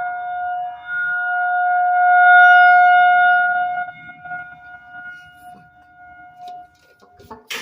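Federal Signal 2001-SRNB rotating tornado siren sounding one steady tone. It swells to its loudest a couple of seconds in, drops away about four seconds in and dies out near the end. A sharp clatter comes right at the end.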